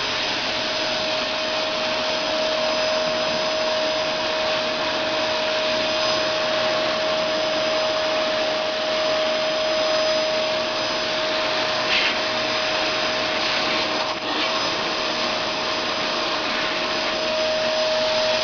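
Dyson Ball vacuum cleaner running steadily as it is drawn over a cat's coat: a constant rushing noise with a steady whine. A brief click comes about twelve seconds in and a short dip in the sound near fourteen seconds.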